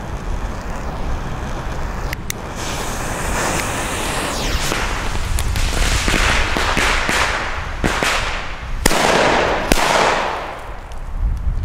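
Two FireEvent D firecrackers going off: two sharp bangs a little under a second apart near the end, after several seconds of rushing noise.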